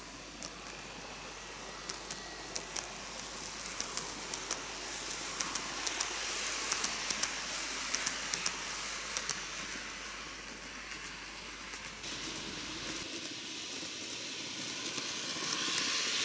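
TOMIX N-gauge model train (Kintetsu 80000 series Hinotori) running on curved track: a steady hissing whir from the wheels and motor, with many sharp irregular clicks as the wheels run over the rail. It grows louder towards the middle, dips about twelve seconds in, and rises again near the end.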